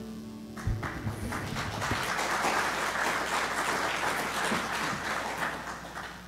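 Congregation applauding. The last held chord of the song fades out as the clapping starts, about half a second in, and the applause dies away near the end.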